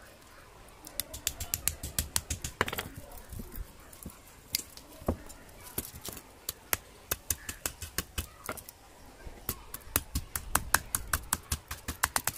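Sharp clicks and taps in quick, irregular runs of several a second, starting about a second in.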